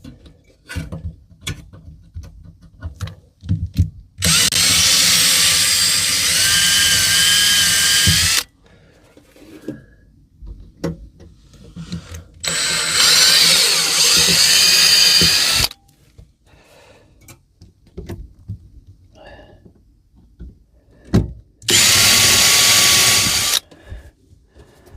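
Power drill running in three bursts, the first about four seconds long, the second about three and the last about two, drilling small pilot holes with a 2 mm bit. Light knocks and handling noise come between the bursts.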